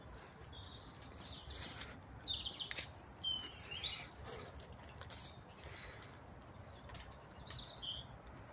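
Small songbirds chirping and singing in the surrounding trees and hedgerow, short high calls and trills overlapping throughout, with a few faint clicks a couple of seconds in.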